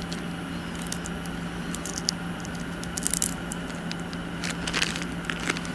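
Handling noise from a new wooden hatchet handle and its hatchet head being worked by hand: scattered light clicks and scrapes, a few at a time, over a steady low hum.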